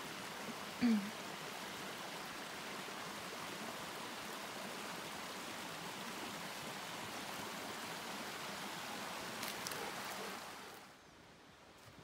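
Rain-swollen forest stream, water running steadily over rocks. Its sound drops away sharply near the end. About a second in there is a brief vocal sound.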